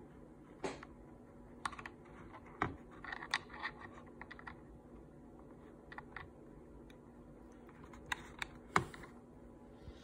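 Faint, scattered small plastic clicks and taps as a spare thumbstick is screwed onto the control-stick post of a DJI Mini SE remote, over a faint steady hum.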